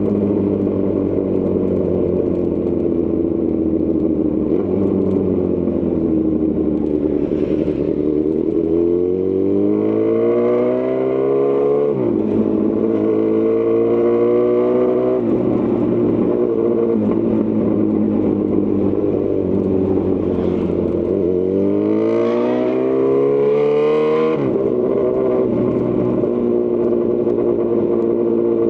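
2018 Honda CB1000R's inline-four engine through a Lextek CP1 full exhaust, on the move: running steadily, then revving up hard twice, about nine and twenty-two seconds in, each pull ending in a sudden drop in pitch.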